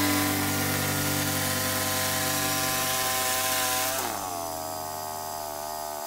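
Woodland Mills portable bandsaw mill running at speed, with a steady engine note and the hiss of the spinning band blade. About four seconds in the revs fall away and the mill settles to a lower, quieter running note.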